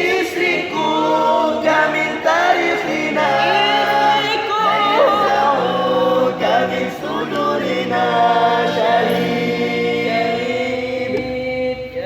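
A small group singing an Arabic sholawat line unaccompanied in vocal harmony, several voices holding and moving between chords.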